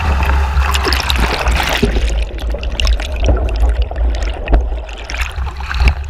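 Spray rushing over an RS400 dinghy's hull with wind buffeting the microphone, then about two seconds in the sound turns muffled and gurgling as the camera goes into the water, with splashing and trickling.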